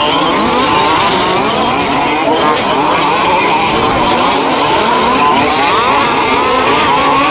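Several 1:5-scale gasoline RC short-course trucks racing together, their small two-stroke engines overlapping in a whine that keeps rising and falling as they rev and back off.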